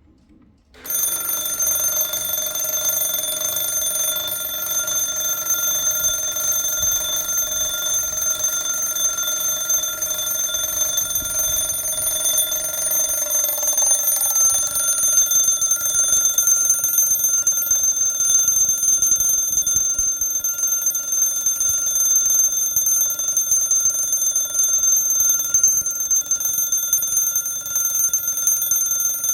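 Mechanical alarm of an 1890 Junghans B32 alarm clock going off about a second in: the hammer rattles continuously on the bell, which rings steadily with several fixed tones.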